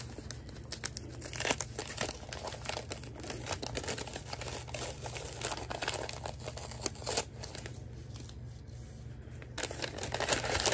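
Brown kraft-paper advent bag crinkling and tearing as it is opened by hand, in irregular rustles that grow denser near the end.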